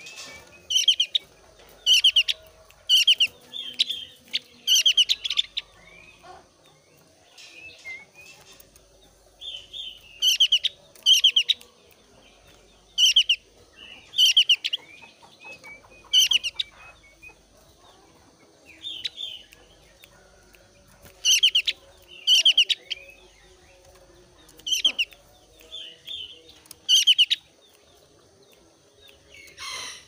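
Javan grey-throated white-eye (opior Jawa) calling in short, high, rapid chattering trills, one phrase about every second with a few brief pauses. The keeper says the bird is in breeding condition (birahi) and singing hard.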